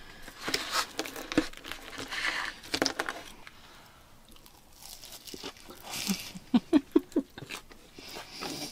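A fork cutting into a pancake on a paper plate, then a mouthful of granola-topped pancake being chewed with soft crunching and crinkling.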